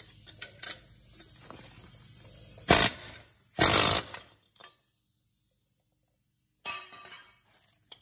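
Pneumatic air hammer firing in two short bursts against a rear wheel hub, driving it out of the knuckle; the second burst is about half a second long. A fainter burst follows near the end.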